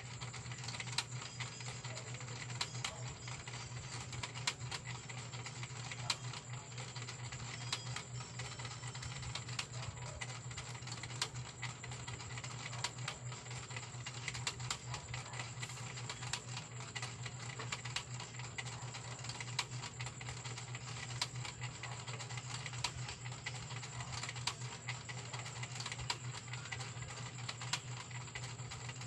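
Irregular light clicks and taps, several a second, over a steady low hum and a steady high whine.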